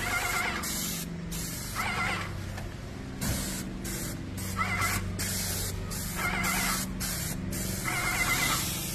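Stone Hammer X2000 electric airless paint sprayer spraying water-based wall primer: the gun hisses in repeated short bursts as the trigger is squeezed and let go, over a steady low hum from the pump. A wavering whine comes and goes several times.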